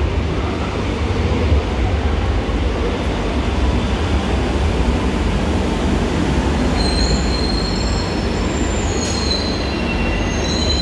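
Madrid Metro series 2000A train pulling into the platform, running past with a steady rumble. From about seven seconds in, thin high squeals join as it slows.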